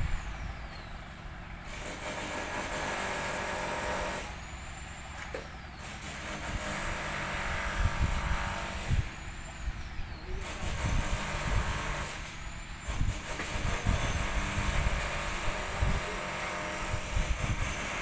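Engine of a small flatbed truck running as it drives slowly on a dirt road with a mini bulldozer loaded on its back, heard as a continuous low rumble with irregular surges.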